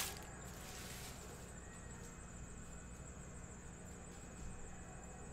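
Quiet room tone: a faint steady hiss with a thin, high-pitched whine and a low hum underneath.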